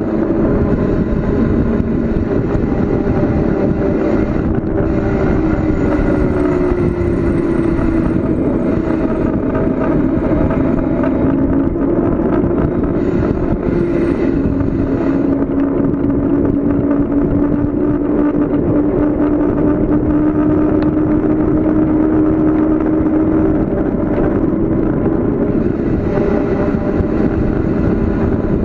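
Wind rushing over the microphone of a bicycle rider coasting fast downhill, loud and steady, with a hum underneath that slowly drops in pitch.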